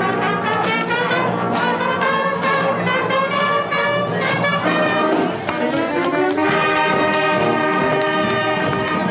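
Middle school marching band playing a brass-led tune on saxophones and brass horns, the melody moving in short rhythmic figures and then settling into long held notes about six seconds in.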